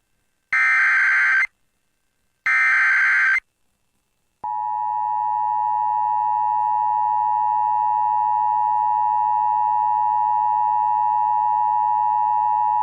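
Emergency Alert System tones. First come two bursts of the SAME digital header, each a harsh data screech about a second long with a second's gap between them. After a second of silence the steady two-tone attention signal is held for about eight seconds, the signal that a warning message follows.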